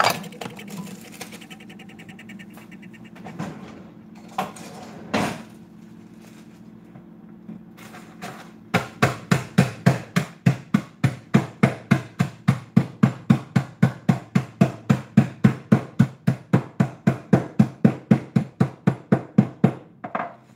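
Garlic-and-cheese croutons being smashed into breadcrumbs: a few scattered knocks, then from about nine seconds in a steady run of heavy blows, about three to four a second, that stops shortly before the end.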